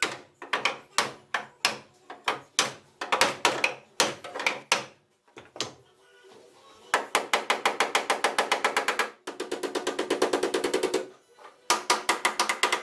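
Body hammer striking the sheet-steel rear panel against a dolly to beat out a dent: separate blows at first, then after a short pause three fast runs of light taps, about seven a second.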